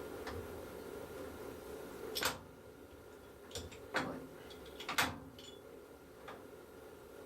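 Sharp metal clunks of a lathe's controls being operated, five or so, the loudest about two, four and five seconds in, over a steady hum.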